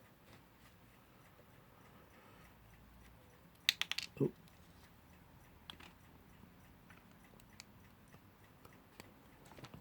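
Small clock parts being handled: a quick cluster of sharp clicks about four seconds in and a single click near six seconds, otherwise quiet.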